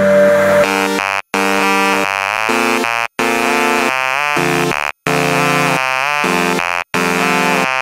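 Electronic music led by a buzzy synthesizer, its chords stepping quickly in a fast pattern; the music cuts out for an instant about every two seconds.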